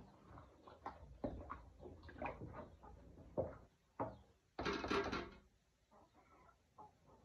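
Chickens clucking, with one short loud squawk about five seconds in.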